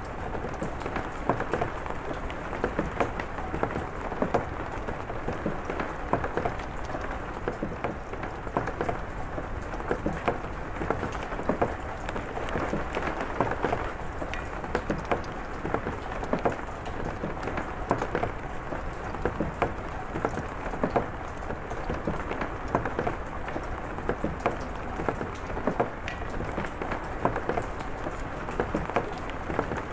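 Steady rain falling, with many individual drops striking close by in sharp, irregular taps.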